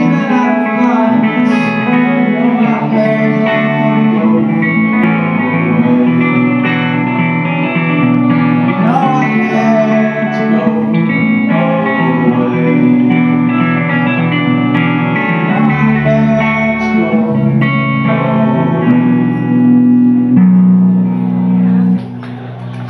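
Live guitar-led band music played loud, with many sustained, ringing notes. The song stops about a second before the end.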